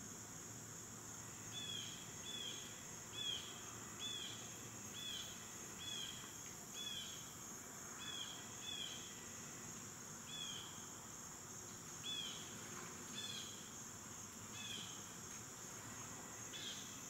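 Steady high-pitched drone of insects, with a run of about fifteen short, down-slurred animal calls, repeated at irregular intervals and starting a second or two in.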